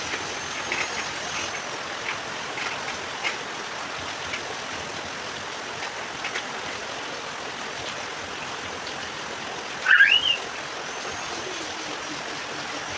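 Heavy rain pouring steadily, with scattered drips tapping in the first few seconds. About ten seconds in, a short rising squeak cuts through.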